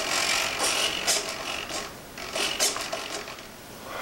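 Small RC servos in the model biplane, powered up and driving in a series of short, gear-driven bursts as they are moved and centred.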